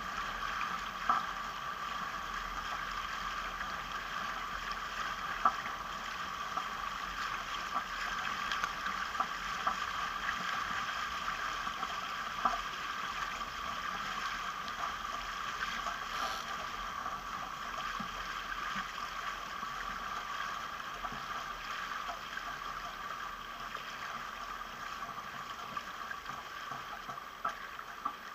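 Sailing catamaran's hull rushing through the water, a steady wash of spray and hiss with a few brief sharp slaps of waves against the hull.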